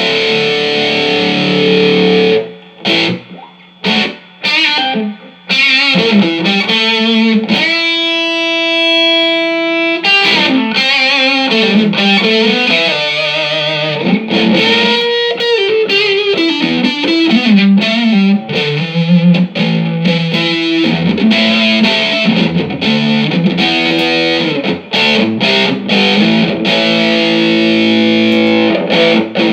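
Distorted electric guitar played through a Mesa Boogie Dual Caliber DC-3 tube amplifier, which is working again after a repair. Chords are cut short several times a few seconds in, then a long held note, then bent lead notes and more chords.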